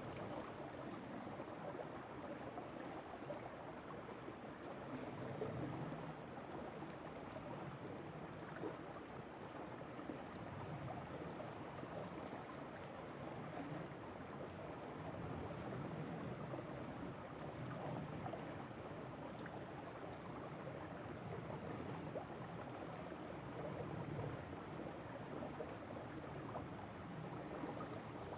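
River water flowing steadily, an even rushing sound with no breaks.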